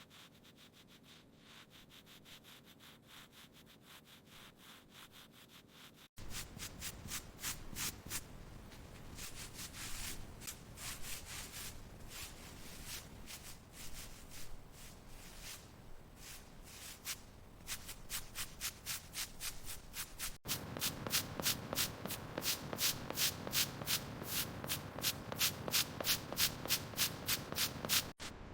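Sanding by hand: rhythmic back-and-forth strokes of abrasive on the helicopter's old surface, stripping away worn finish and grime. It is fainter for the first six seconds, then louder, in several cut-together stretches.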